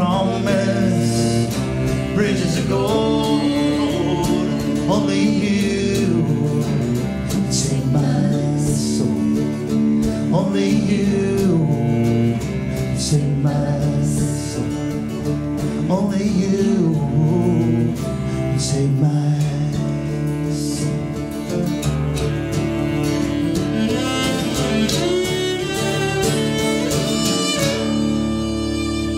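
Live acoustic folk music: a strummed acoustic guitar with a bowed cello line.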